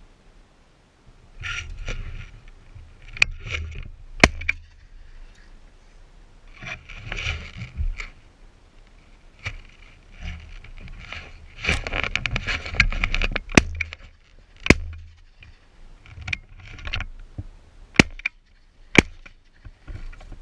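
Rustling and handling noise in bouts with a low rumble, broken by several sharp clicks and knocks.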